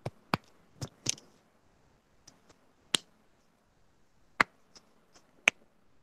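Scattered sharp clicks and taps, about a dozen spaced irregularly, with quiet room noise between them.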